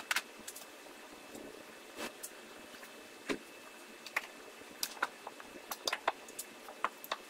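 Scattered light metallic clicks and knocks, about a dozen at irregular intervals, as an old power-steering rack with its tie rods attached is shifted and worked out from under the van.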